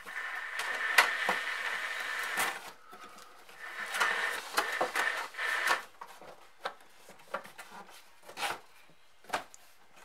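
Two spells of loud hissing, rustling noise of about two seconds each, then scattered light clicks and taps as fingers handle and press a glued plastic dishwasher handle part.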